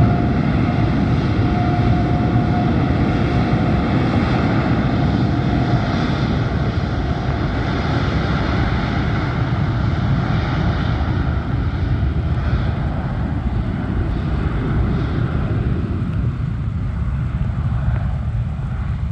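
Airliner engines running loud and close as the aircraft passes, a steady low rumble and roar with a faint whine in the first few seconds, easing off slightly near the end.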